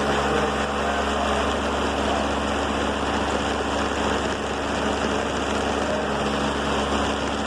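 Loud air compressor running steadily: a constant hum with a hiss over it, unchanging throughout. It supplies air pressure to the robot arm's pneumatic gripper.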